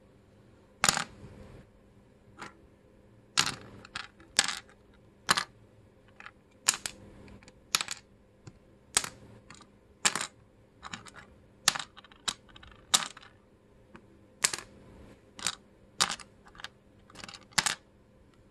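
Pieces of dense, resinous agarwood clicking and clacking against each other and the pile as they are handled and dropped. About twenty sharp clicks come at irregular spacing of about one a second.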